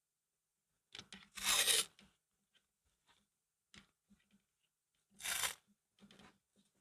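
Two short tearing sounds about four seconds apart, the first a little longer, with small clicks and rustles of handling between them.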